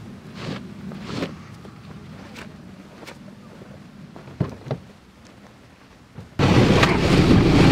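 Soft brushing swishes of snow being swept off a car windshield by a gloved hand. About six seconds in, loud music with drums cuts in.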